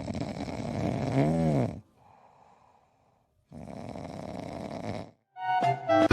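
A sleeping pet snoring: two long raspy snores about two seconds each, the first ending in a brief squeaky whistle that rises and falls.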